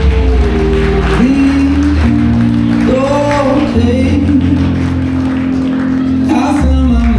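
A song playing, with a singing voice over a steady bass line. It is entrance music for a processional.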